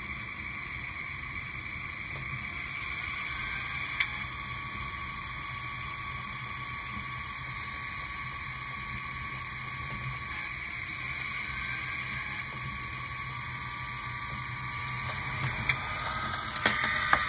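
Diesel prime mover sound from a Digitrax SDXH166D DCC sound decoder, set for a GP10, playing through its small stock speaker as the throttle is raised a step or two. It is a steady, harsh hiss like television static, absolutely wretched. There is a click about four seconds in and a few more near the end.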